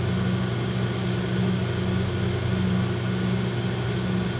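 A steady mechanical hum with a low, unchanging drone, the kitchen's running machinery. Over it, a spatula faintly scrapes and stirs a ground-spice steak rub in a stainless steel bowl.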